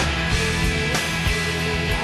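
Studio recording of a rock song: a full band playing, with drums striking a steady beat over sustained guitar and bass.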